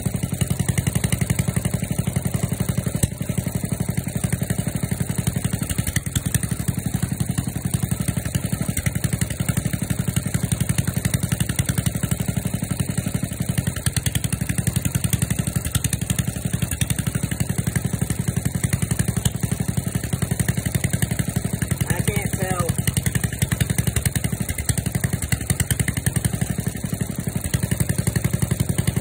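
Small engine of a walk-behind garden tractor running at a steady idle, warming up after a cold start.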